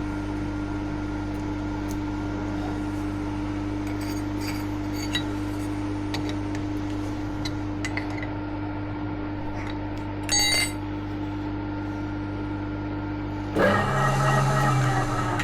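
Milling machine running steadily, its spindle driving a smaller drill bit through a seized broken bolt, with light metallic clinks of the cutting. About ten seconds in there is a short sharp metallic clink, and near the end a louder ringing, tonal stretch of about two seconds.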